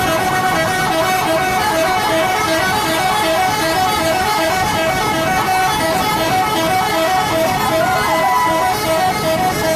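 Multi-tone 'telolet' bus horn playing a rapid, repeating tune of short notes that alternate between a few pitches without a break.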